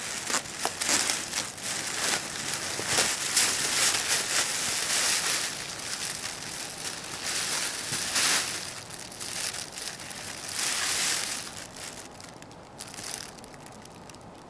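Foil (mylar) emergency blanket crinkling and crackling in repeated bursts as a person wrapped in it shifts and sits up, fading away near the end.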